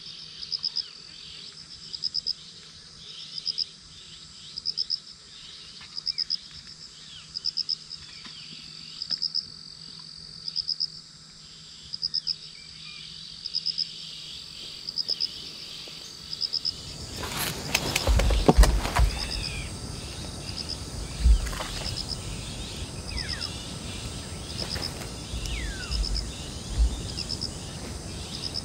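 An insect chirping steadily, each chirp a quick run of three or four high pulses, repeating about once every second. A little past halfway, a few seconds of rustling and low thumps stand out above it.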